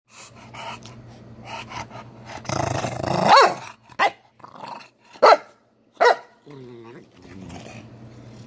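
Two dogs, an English bulldog and a black-and-white long-haired dog, play-fighting: a low growl throughout, swelling into a loud snarl about three seconds in, then three short sharp barks about a second apart and a short falling whine.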